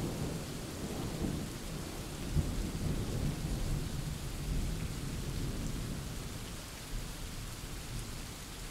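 Steady rain with a low rumble of thunder, easing slightly toward the end.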